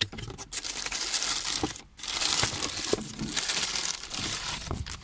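Crinkling and rustling of packaging as a new SKF wheel hub bearing is handled and unpacked, with a few small knocks and a louder stretch of rustling about two seconds in.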